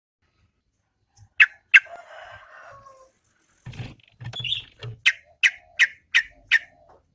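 Yellow-vented bulbul (trucukan) calling: two sharp notes, a short warble, then a quick run of five sharp, evenly spaced notes near the end.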